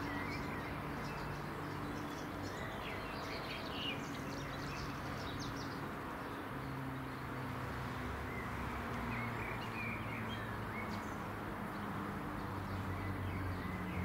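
Outdoor ambience: birds chirping now and then, mostly a few seconds in and again past the middle, over a steady background of outdoor noise with a low hum.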